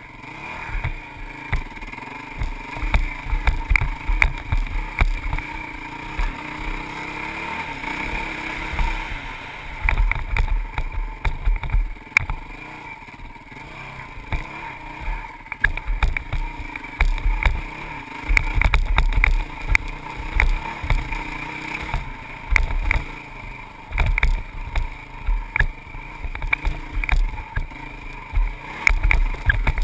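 Honda CRF450X dirt bike's four-stroke single-cylinder engine running under way, its pitch rising and falling with the throttle. Irregular low rumbles and short knocks come from the bike jolting over the rough trail.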